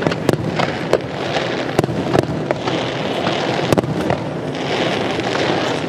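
Fireworks display: many sharp bangs from bursting aerial shells, irregular and closely spaced, over a continuous crackling.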